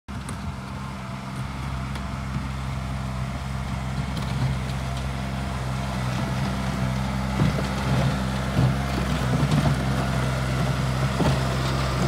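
Bobcat 463 skid-steer loader's diesel engine running steadily as it pushes snow, growing gradually louder as the machine comes closer. A few short knocks break in during the second half.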